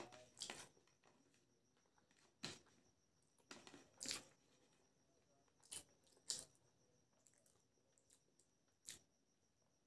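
Close-miked eating sounds: biryani rice being squeezed and mixed by hand on a plate, with mouth noises, heard as a few short, soft crackles spread over several seconds.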